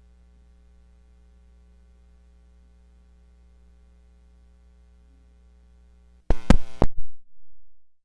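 Faint steady electrical hum. About six seconds in comes a quick cluster of loud sharp knocks and thumps, with a short low rumble after. Then the sound cuts out completely.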